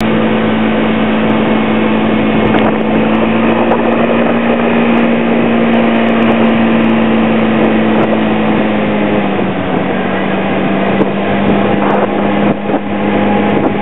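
Scooter engine running steadily at cruising speed under the rider, with wind noise on the microphone; the engine note drops slightly about nine seconds in.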